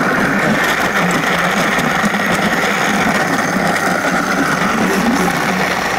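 Vitamix Ascent A2500 blender starting up on its smoothie program and running steadily at speed, blending frozen broccoli and spinach with ice cubes and plant milk.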